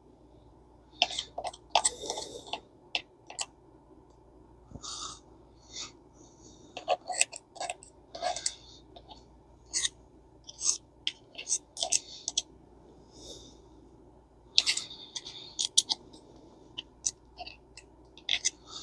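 Old screwdriver scraping old grease out of a spinning reel's metal housing: irregular sharp clicks and short scrapes of metal on metal.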